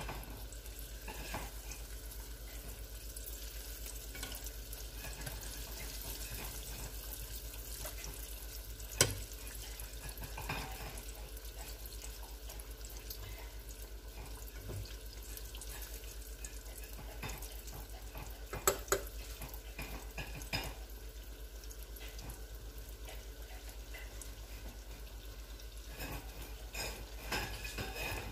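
Plantain turnovers deep-frying in a small pan of hot oil, a steady sizzle, with a few sharp clinks of a wire spider strainer against the pan.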